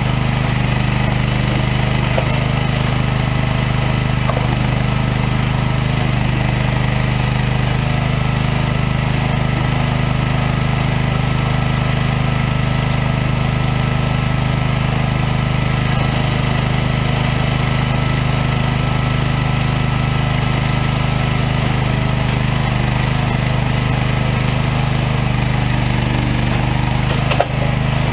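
Regon R1 firewood processor's engine running steadily, with a single short knock near the end.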